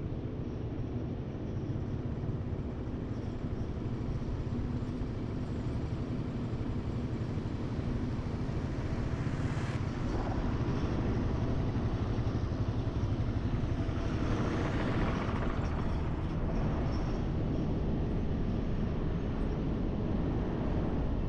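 Motor vehicle running along the road: a steady engine hum under road noise, swelling briefly about ten seconds in and again around fifteen seconds in.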